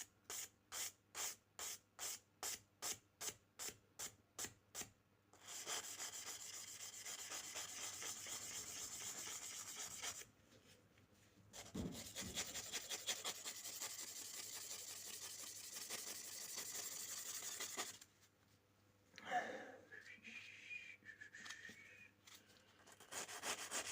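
A nail buffer block is rubbed back and forth over a steel pocket-knife blade. For about five seconds it makes quick, even strokes, about three a second, then turns to steady rubbing in long runs broken by short pauses.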